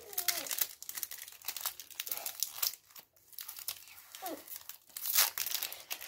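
Foil Pokémon trading-card booster pack wrapper crinkling and tearing as it is pulled open by hand: a run of sharp, irregular crackles, loudest about five seconds in.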